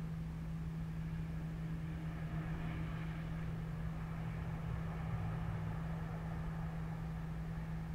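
A steady low hum over a faint rumble, typical of distant street traffic heard through window glass.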